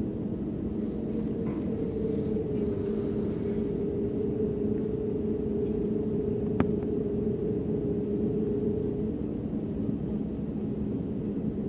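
Cabin noise of an Air Arabia Airbus A320-family jetliner taxiing: the jet engines run at idle, giving a steady rumble with a low droning hum. A single sharp click about six and a half seconds in.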